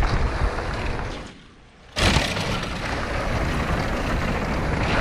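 Wind rushing over a camera microphone and tyres rolling on a dirt trail as a mountain bike descends fast. The noise drops away for about half a second just after a second in, then comes back suddenly.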